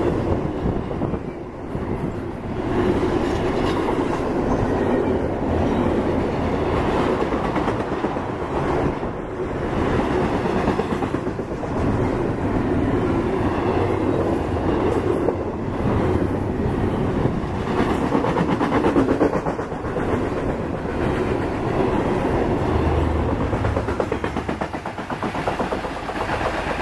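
Double-stack intermodal freight train rolling by at about 50 mph: a steady rumble of steel wheels on rail, with repeated clacking as the cars pass over the track.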